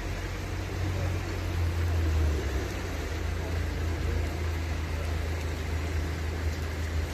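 Steady rain falling, an even hiss with a constant low rumble underneath.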